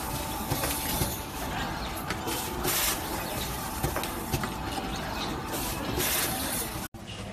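Electric coil binding machine at work on a cable coil: a steady hiss and faint hum, with short bursts of hissing noise a few seconds apart as the tying head cycles. The sound cuts out abruptly near the end.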